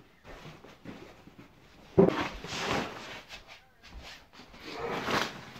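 A sudden thump about two seconds in, then crackling rustles of plastic sheeting and fabric as a wrapped ice-fishing tent is handled on the floor, with another burst of rustling near the end.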